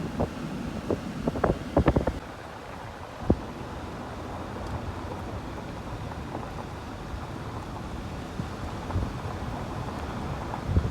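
Wind buffeting the microphone in sharp gusts for the first two seconds, then a steady rushing noise, with one short thump a little over three seconds in.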